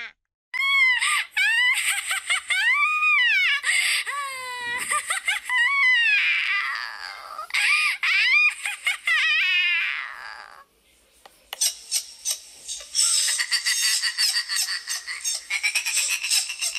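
High-pitched witch's cackle, a sound effect: a shrill laughing voice that swoops up and down in pitch. After a brief pause about eleven seconds in, it gives way to a fast, rattling run of cackles.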